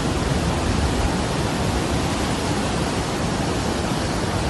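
Steady rush of a swollen, muddy mountain river in flood, fast water pouring among boulders.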